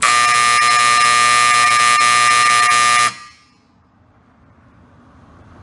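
Wall-mounted electric signal horn sounding one loud, steady blast for about three seconds, set off by the manual trigger of a programmable bell timer, then cutting off abruptly.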